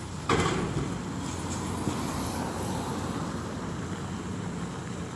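CAT excavator's diesel engine running steadily as its demolition grapple tears into the building, with a loud crash of breaking debris just after the start, followed by crunching and scraping.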